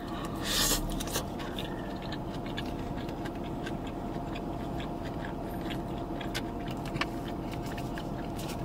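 A person chewing a mouthful of rice, lettuce and meat: a run of soft wet mouth clicks and smacks, with a brief louder noise about half a second in, over a steady low hum.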